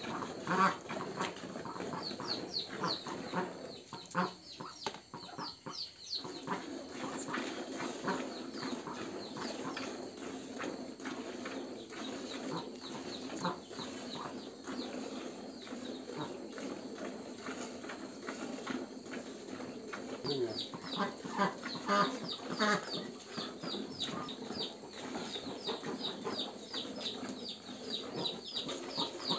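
Milk squirting from a cow's teats into a plastic bucket during hand-milking: a quick, even rhythm of short squirts, with a brief lull about four seconds in.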